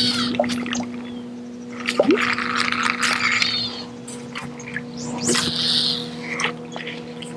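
Baitcasting reel cranking and a small topwater popper spitting and splashing across the surface on a fast retrieve, in three stretches, over a steady low hum.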